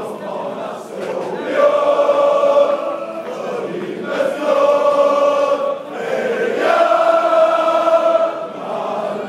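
Crowd of Malmö FF supporters singing the club's anthem together, many voices in unison. Three long, held sung phrases with short dips between them.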